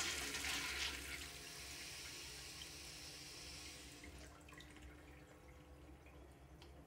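Tail end of a urinal flushometer flush: water runs into the bowl, tapers off and stops about four seconds in. The valve, just refitted with a smaller 1.0-gallon diaphragm and a new cap, closes without a water-hammer bang.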